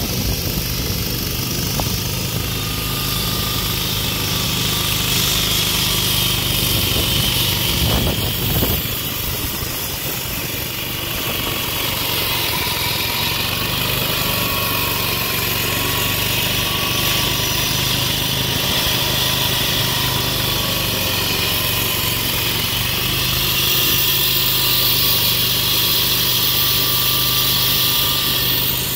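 Walk-behind petrol concrete saw running steadily, its blade grinding a cut through a concrete sidewalk kept wet with water.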